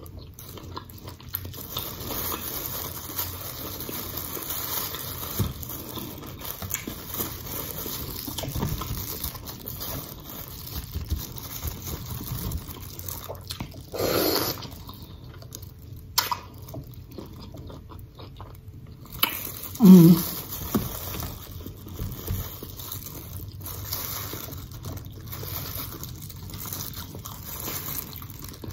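Close-up wet mouth sounds of someone eating a seafood boil: chewing, lip-smacking and sucking on food, with a louder bite about fourteen seconds in.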